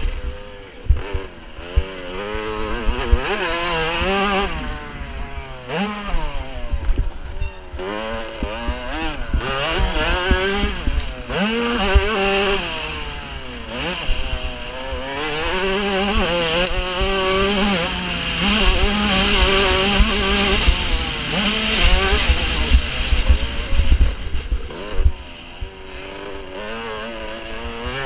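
Motocross bike engine revving hard and easing off again and again as the rider works through the gears and corners, heard close up from on board.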